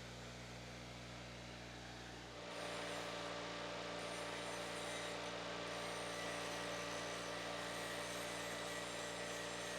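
Hobart welder humming steadily; about two and a half seconds in, a welding arc strikes and hisses steadily as a foot is welded onto a stand leg.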